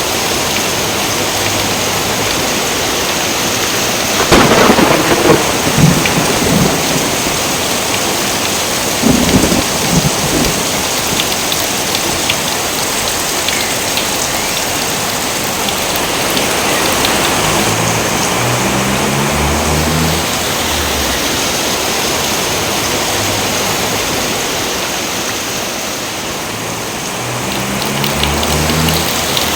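Steady heavy rain with thunder: a loud crack and rumble about four seconds in that lasts a couple of seconds, and a second, shorter clap at about nine seconds.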